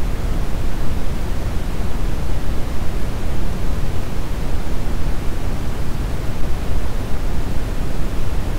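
Brown noise: a steady, even rumbling hiss, strongest in the bass and fading toward the treble, with no changes.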